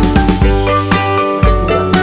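Background music: pitched notes with sharp attacks over a deep bass and a steady beat of about two hits a second.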